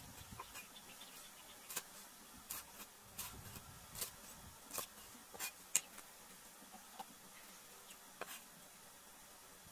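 Cleaver chopping red chillies on a round wooden chopping board: irregular sharp knocks of the blade on the wood, thick in the first six seconds and sparser after.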